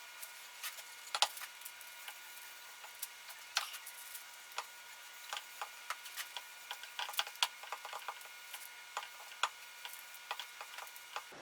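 Faint, irregular small clicks and ticks, a dozen or more scattered unevenly, over a quiet hiss.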